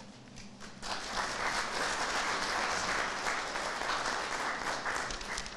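Audience clapping, starting about a second in and dying away near the end.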